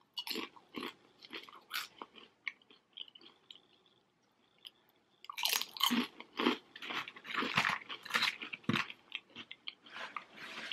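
Close-up crunching and chewing of a crispy fried chicken wonton. A few sharp crunches come in the first two seconds, then a quieter stretch, then a dense run of crunchy chewing from about halfway through.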